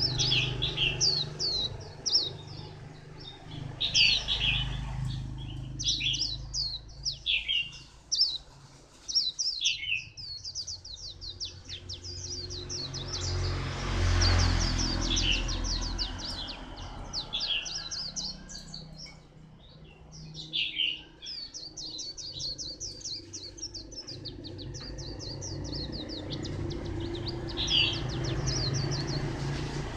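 Caged white-eye singing: long runs of rapid, high, quickly falling twittering notes, with short pauses between phrases. A low rumble swells and fades about halfway through.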